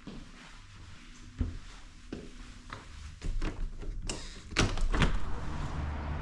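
A series of knocks and thuds, the loudest about four and a half seconds in, followed by a steady low hum.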